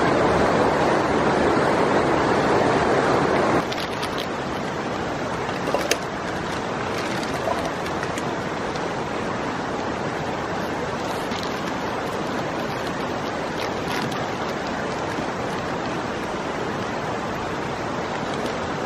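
Steady rush of a river running past. The sound drops abruptly to a lower level about three and a half seconds in, with a few faint clicks later on.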